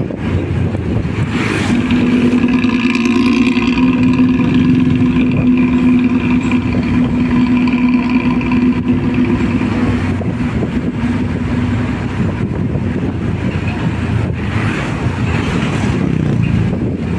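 Hino diesel bus running at an easy pace, its exhaust giving the deep, snoring 'ngorok' growl typical of Luragung Jaya buses. A steady droning note rides over the rumble from a second or two in, then fades about halfway through.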